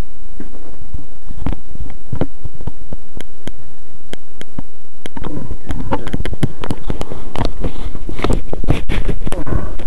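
Loud, distorted buzz of the trike's Rotax 503 two-stroke twin engine overloading a cheap microphone. Over it come many sharp clicks and rustles from the camera sunglasses being handled, sparse at first and much denser in the second half.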